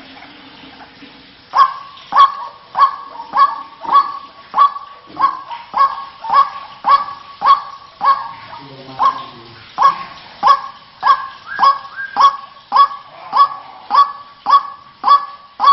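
White-breasted waterhen (ruak-ruak) calling: a harsh, honking 'kruak' repeated steadily, a little under two calls a second, starting about a second and a half in. It is a lure call for drawing waterhens in rice fields.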